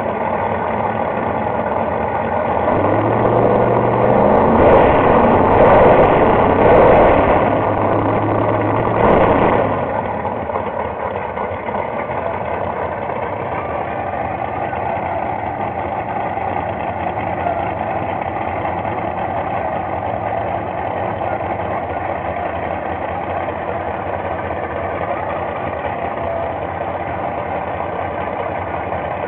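Pro Mod drag racing cars' V8 engines at the starting line, revved in several blips for about six seconds, then idling steadily.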